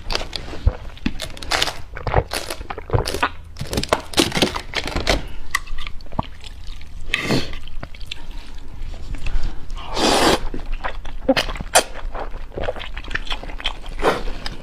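Close-miked eating sounds: wet chewing and lip smacks made of many short clicks, with longer slurps about seven and ten seconds in, typical of slurping noodles.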